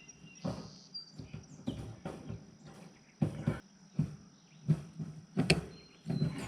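Wire rabbit-cage panels clinking and rattling as metal cage clips are fastened onto the wire mesh: a series of sharp, irregular clicks and clanks, the loudest bunched in the second half.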